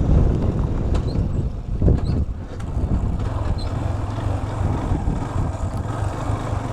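Wind rumbling on a motorcycle vlogger's external microphone, with no windscreen cap fitted, over the steady running of a TVS Apache 160's single-cylinder engine while the bike is ridden.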